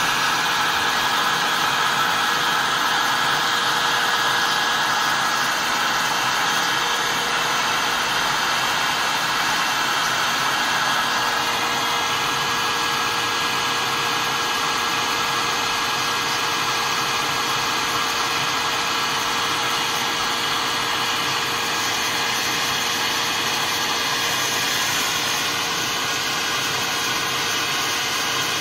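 Electric hair dryer blowing steadily, a constant rush of air with a faint steady whine from its motor.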